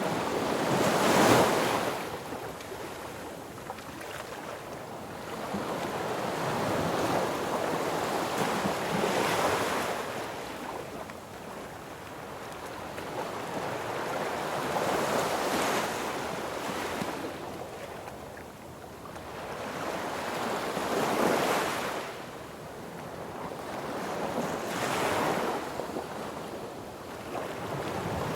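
Sea waves breaking on a beach: a steady wash of surf that swells as each wave breaks and fades as it runs back, about five times, several seconds apart.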